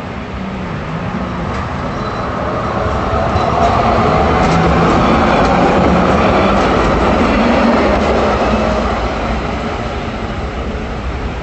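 City tram passing close by on its street track: the rolling rumble of its wheels on the rails swells to a peak through the middle and fades away again, with a few clicks as it approaches.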